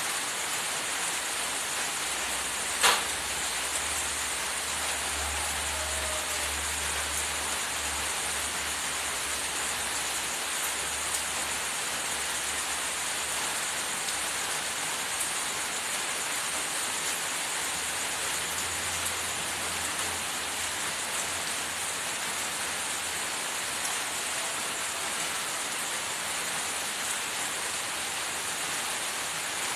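A steady, even hiss, with one sharp click about three seconds in and a faint low rumble now and then.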